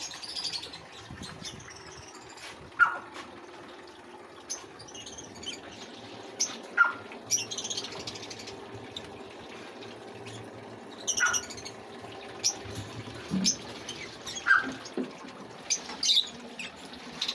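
Caged birds chirping and squawking in short, scattered calls over a faint steady low hum.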